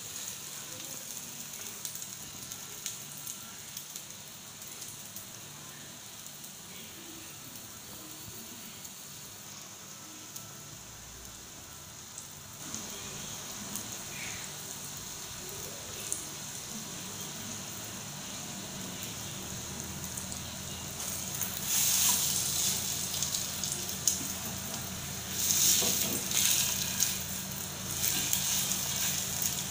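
Egg-dipped bread slices frying in butter in a nonstick pan, with a steady sizzle. The sizzle surges louder twice in the last third.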